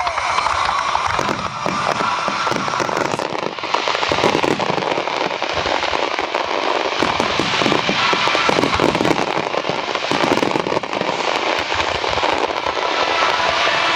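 Fireworks display: aerial shells bursting one after another in a dense run of many rapid pops and bangs, with music playing along.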